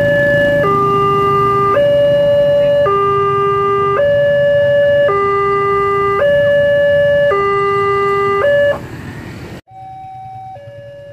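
Electronic railway level-crossing warning alarm sounding a loud two-tone signal, alternating between a higher and a lower tone about once a second. It stops abruptly near the end and gives way to a fainter two-tone crossing alarm that swaps tones faster.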